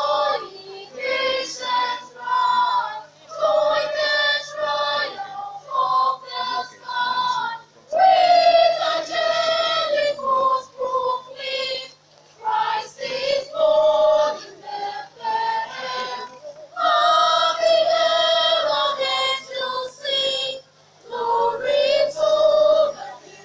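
School choir singing unaccompanied, in sung phrases of a few seconds each with short breaks between them, over a faint steady low hum.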